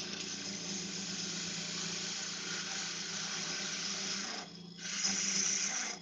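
Spindle gouge cutting a thin spindle spinning on a wood lathe: a steady hiss of shavings over the lathe's hum. The cut lifts off briefly a little past four seconds and comes back louder. It is a test cut with the narrower spindle gouge to reduce the chatter where the thin workpiece resonated.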